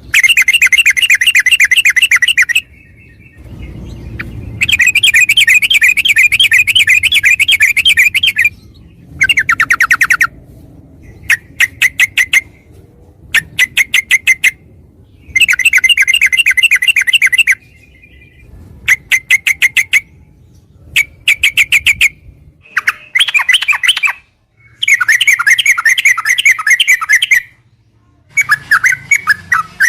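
Yellow-vented bulbul (trucukan) singing loudly in rapid chattering bursts of one to three seconds, with short runs of separate sharp notes and brief pauses between them.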